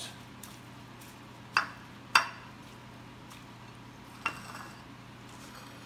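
Ceramic salad bowl clinking as arugula is tossed in it by hand: three sharp clinks about one and a half, two and four seconds in, the middle one the loudest, with a few fainter ticks between.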